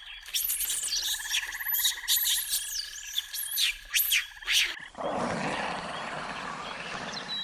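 Repeated short, sharp croaking animal calls over a steady high trill. About five seconds in, this cuts off and a loud, rough, rushing animal sound takes over.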